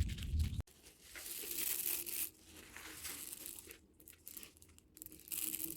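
Dry corn being shelled on a traditional corn sheller: uneven crunching and crackling as kernels are stripped from the cobs. A low rhythmic hum cuts off abruptly about half a second in.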